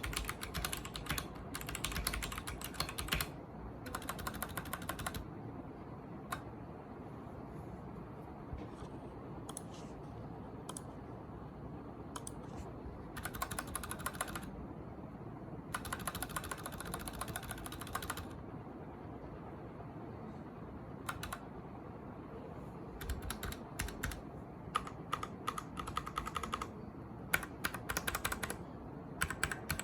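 Typing on a Royal Kludge RK71 mechanical keyboard with red linear switches: fast runs of key clicks, broken by stretches of slower, scattered keystrokes.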